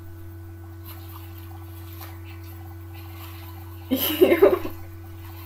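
Steady low electrical hum, with a brief loud burst of a woman laughing about four seconds in.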